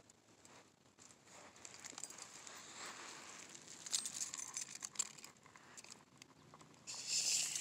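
Crackling and rustling of dry grass and sand as a freshly caught fish is handled on the bank, unhooked and laid out for measuring, with small scattered ticks. A louder burst of rustling comes near the end.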